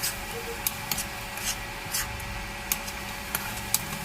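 Spatula stirring a tomato, onion and salsa sauce mixture in a frying pan: irregular sharp clicks and scrapes of utensil on metal over a steady sizzling hiss.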